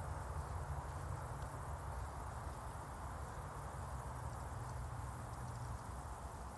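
Steady outdoor ambience: a thin, unbroken high insect drone over a low rumble, with no clear strokes or rhythm.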